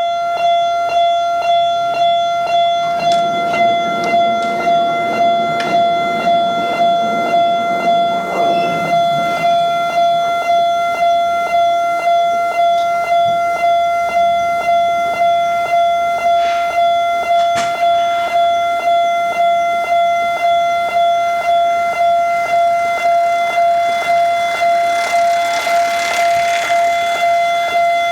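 Japanese railroad level crossing warning alarm sounding its repeated "kan-kan" bell tone, a little under two strikes a second. A low rumble joins it between about three and nine seconds in, and a hiss near the end.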